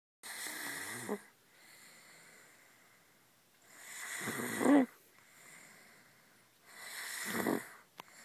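A 130-kg teenager snoring in sleep: three snores about three seconds apart, each building up and ending loudest, with softer breathing between.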